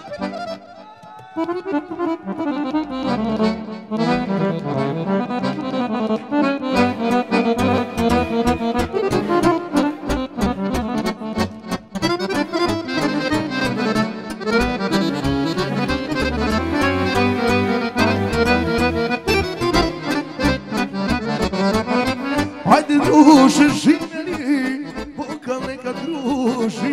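Button accordion playing an instrumental folk tune, a melody over a steady pulsing bass. There is a brief louder burst near the end.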